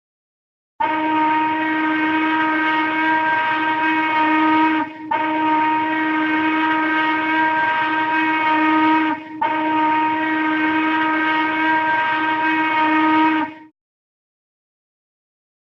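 A vehicle's signal horn, one steady pitch with many overtones, sounded in three long blasts of about four seconds each, separated by very short breaks.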